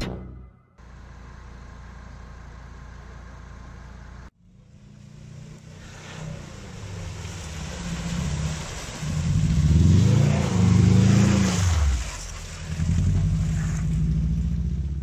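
Subaru Impreza wagon's flat-four engine revving hard as it pushes through deep mud and water, the revs rising and falling several times and loudest in the middle, with mud and water splashing under the wheels.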